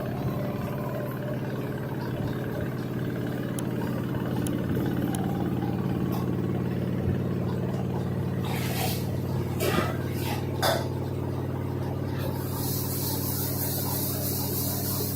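LG front-load washer-dryer running with a steady low hum and rumble, the heavy vibration and shaking noise the owner complains of. A few brief knocks or rattles come about nine to eleven seconds in, and a steady hiss joins near the end.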